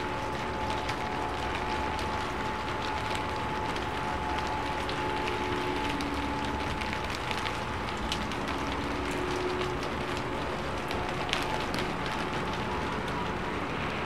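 Steady rain falling: an even hiss with scattered sharper drop ticks over it.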